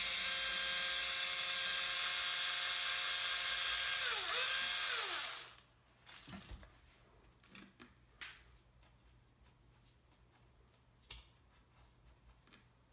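Cordless 4.8-volt electric screwdriver running steadily with a high whine for about five seconds as it backs out the screws of a wheelie-bar remnant. Its pitch sags twice before it stops. A few light clicks of parts being handled follow.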